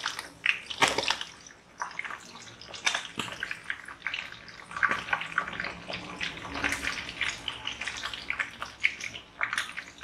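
Chunks of tongkol (mackerel tuna) frying in hot oil in a wok, sizzling and crackling with irregular spits, while a spatula scrapes and turns them in the pan.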